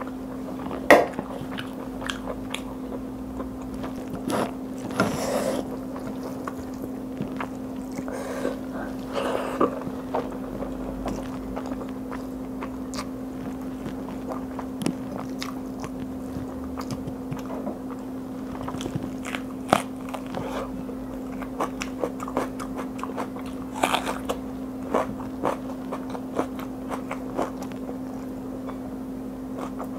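Close-miked mouth sounds of someone eating mutton curry and rice by hand: wet chewing, lip smacks and many small clicks, with a few louder moments, over a steady low hum.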